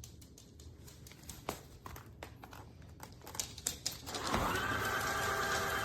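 Scattered light clicks and knocks of handling. Then, a little after four seconds in, a cordless wet-dry vacuum's motor switches on and runs with a steady high whine.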